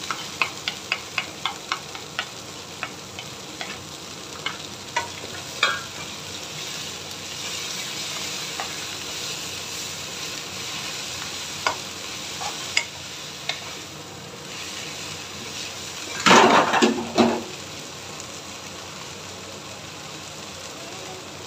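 Water spinach and dried shrimp stir-frying in a nonstick wok: a steady sizzle, with wooden spatulas tapping and scraping against the pan, about two taps a second in the first few seconds and more scattered after. A louder clatter comes about sixteen seconds in.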